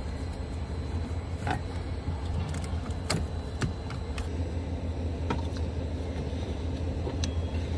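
Steady low hum of an idling vehicle engine, with scattered sharp metallic clicks and knocks from hand work on the car battery and its hold-down.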